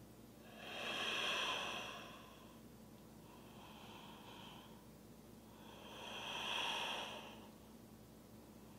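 A woman breathing slowly and audibly through held yoga breaths in downward-facing dog: two long, louder breaths a few seconds apart, with a fainter one between them.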